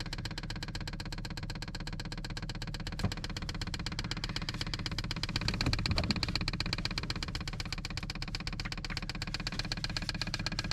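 Diesel heater fuel dosing pump (Vevor 5 kW) ticking rapidly and evenly in prime mode, pulling diesel up the fuel line after the heater has been refitted.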